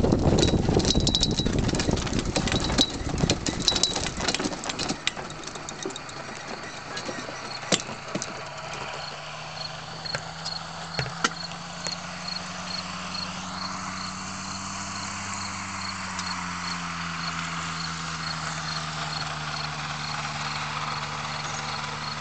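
Motorized hang-glider trike rolling out on grass after landing: a loud rumble of wind and wheels over the ground with scattered knocks and bumps, dying away over the first several seconds as it slows. Its engine then idles steadily, with a faint high beep repeating at an even pace.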